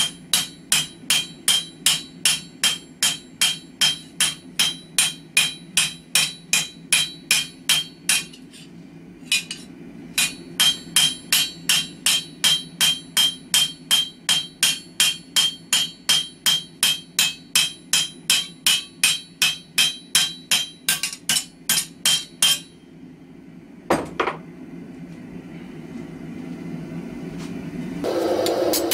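Hand hammer striking a red-hot steel blade on an anvil, forging the bevels into the cutting edge of a nakiri kitchen knife. The blows come about three a second, each with a bright ring. They pause briefly about nine seconds in and stop about two-thirds of the way through; then come a single knock and a steady rushing noise that grows louder near the end.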